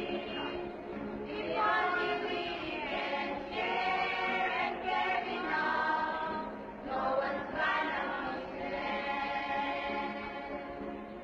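A choir singing slow, long-held phrases, with a couple of short breaks between phrases.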